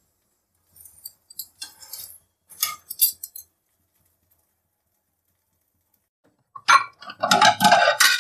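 Steel tongs clicking and scraping lightly against a nonstick tawa as a ghee-brushed aloo paratha is turned, a few scattered clinks. Near the end, a louder burst of unclear sound.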